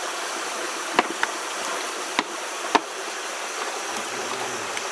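Steady rush of stream water, with a few short sharp clicks in the first three seconds.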